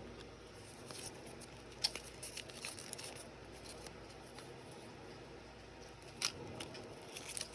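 Paper and small plastic pieces being handled, with a few light crinkles and crisp clicks. The sharpest clicks come about two seconds in and again about six seconds in.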